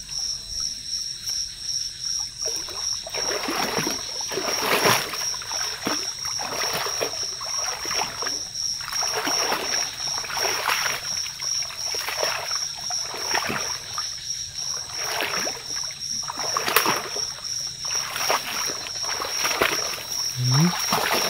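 A person wading through swamp water, with a swishing splash about once a second as the legs push through. Behind it runs a steady, high, pulsing insect chorus.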